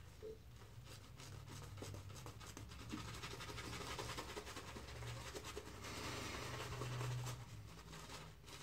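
Synthetic-knot shaving brush working lather over a stubbled face: a faint, continuous scratchy brushing of bristles against skin and stubble.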